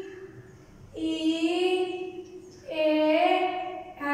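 A woman's voice slowly chanting spelled-out letter names in a sing-song tone, each letter held long at a steady pitch, two in a row with a short pause between.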